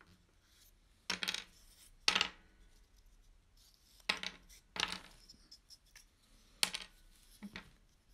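Small buckeye-wood puzzle pieces clacking as they are handled and pushed together into an interlocking 3D jigsaw puzzle: about half a dozen short, sharp clacks at irregular intervals.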